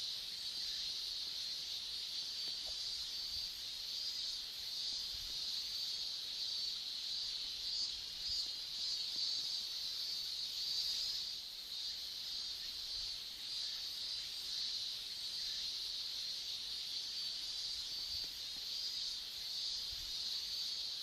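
Steady chorus of insects: a continuous high-pitched trilling that holds without a break.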